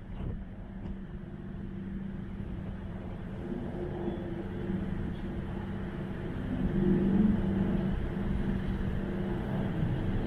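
Steady low engine rumble with a droning hum, growing a little louder about two-thirds of the way through.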